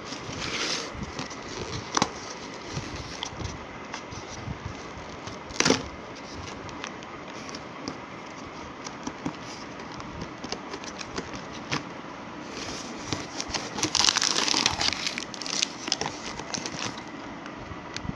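Plastic packaging of dora cakes (dorayaki) crinkling and crackling as it is handled, with scattered sharp clicks and a longer burst of crinkling about fourteen seconds in, over a steady background hum.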